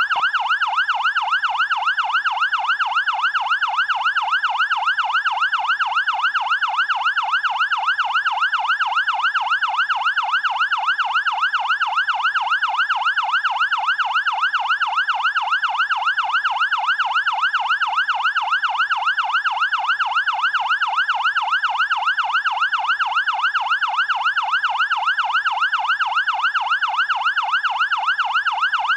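Fire engine siren in a fast yelp, its tone sweeping rapidly up and down about three times a second without a break.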